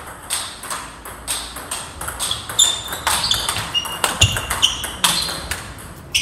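Table tennis rally: the ball clicking sharply off paddles and the table, several hits a second in an uneven rhythm.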